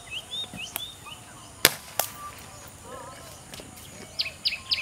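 A single sharp crack about one and a half seconds in, the shot of a tranquilliser dart rifle, with a fainter click just after. Birds chirp throughout, with a fast run of repeated bird calls starting near the end.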